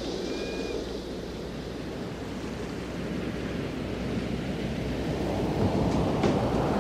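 Rushing noise like ocean surf, swelling gradually as the intro of a song track, with the first sharp hits of the music coming in near the end.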